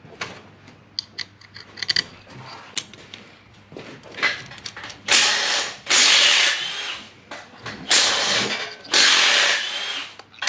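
Workshop tool work on a metal throttle body. First come light metallic clicks and taps, then several loud rasping bursts about a second long each.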